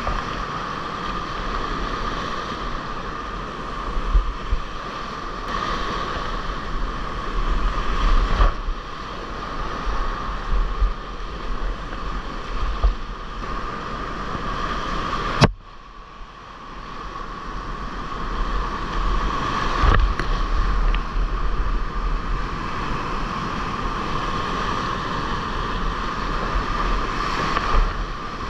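Whitewater rapids rushing loudly around a kayak, with waves splashing over the boat and the camera. About halfway through there is a sharp click and the sound suddenly drops away, then builds back up over a few seconds.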